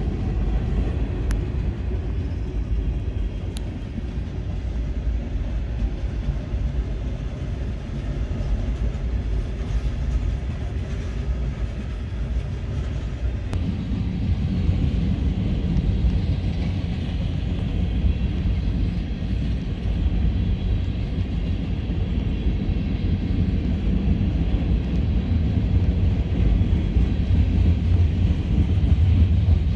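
Freight cars of a CSX train rolling past on the track with a steady low rumble of wheels on rail. It grows heavier and a little louder from about halfway through.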